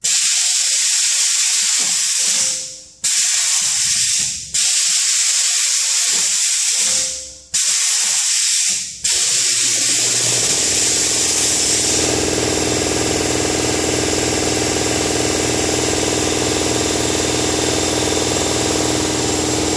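Loud compressed-air hissing from a pneumatic drum compressor, in bursts that start suddenly and fade away, four times over the first nine seconds. The hiss then runs on without a break, and a steady low hum joins it about ten seconds in.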